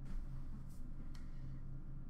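A few faint clicks and taps from plastic card holders being handled, over a low steady hum of room tone.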